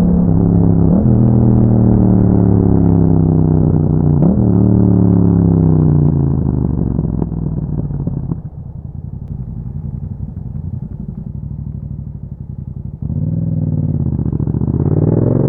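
2021 Yamaha MT-07's 689 cc parallel-twin engine through an Akrapovic exhaust, revs falling as the bike slows with two short blips in the engine note, then running quietly at low revs for several seconds before the revs rise again as it accelerates near the end.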